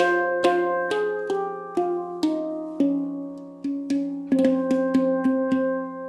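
F Integral 10 steel handpan, tuned F: C Db Eb F G Ab C Db Eb, played with the fingers: single ringing notes struck about twice a second over a long-sounding low note. From about four seconds in the strikes come faster.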